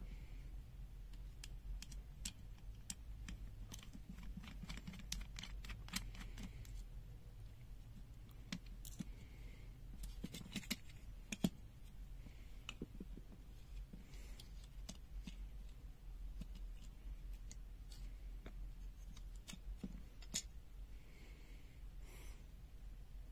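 Faint, irregular small clicks and taps from hands and small tools working on the plastic case of a pen-type multimeter as it is taken apart.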